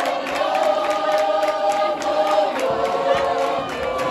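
A large crowd of school learners singing a song together in unison, holding long notes that change pitch a few times.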